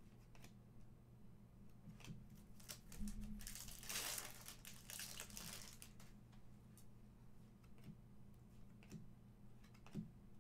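Upper Deck Aliens trading cards being flipped and slid off one another in the hand: faint ticks and snaps of card edges, with a louder rustle of cards for a couple of seconds about three seconds in.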